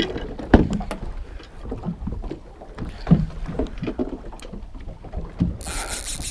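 Wind rumbling on the microphone, with irregular knocks and rattles from cranking a Shimano Socorro spinning reel and handling the rod during a fish fight. A short burst of high hiss comes near the end.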